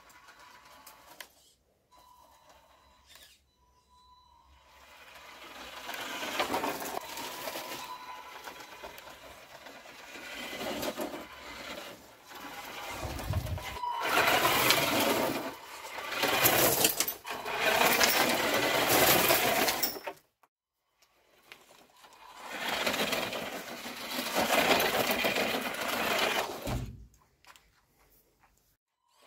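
Homemade RC 4x4 off-roader driving over gravel and dirt: its motor and gearbox buzzing along with the crunch of tyres on stones. It drives in several runs of a few seconds each, with short stops between.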